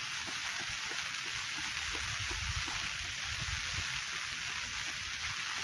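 Steady rain falling, an even hiss, with low rumbling underneath that is strongest in the middle.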